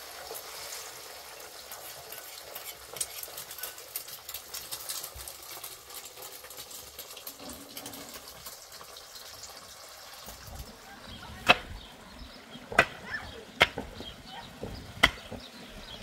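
Egg frying in oil in a pan on a gas stove, a steady sizzle with fine crackles. About ten seconds in, a pickaxe strikes stony ground four times, a second or so apart, each strike sharp and loud.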